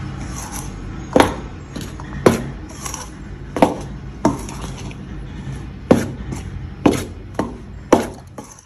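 Perforated steel spatula stirring dry flour in a steel mixing bowl: about ten sharp metal knocks against the bowl at uneven intervals, with soft scraping through the flour between them.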